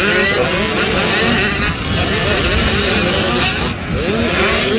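Several youth two-stroke motocross bikes racing, their engines revving up and dropping again and again as the riders work the throttle and shift.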